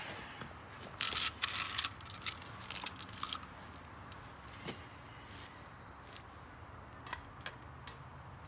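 Loose metal lug nuts clinking together in a hand, a cluster of bright jingles between about one and three and a half seconds in, followed by a few single light clicks as the nuts are threaded onto the wheel studs by hand.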